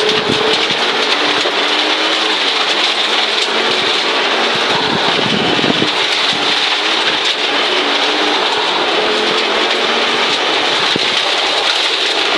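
Audi Quattro Group B rally car's turbocharged five-cylinder engine working hard, its revs rising and falling as it drives the stage, heard from inside the cabin. Under it runs a constant hiss and patter of gravel thrown up against the underbody.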